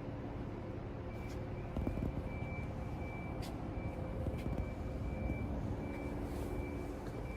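Nomura NN-32YB2 Swiss-type CNC sliding-headstock lathe running: a steady machine hum, with a faint high-pitched tone that comes and goes from about a second in and a few short clicks.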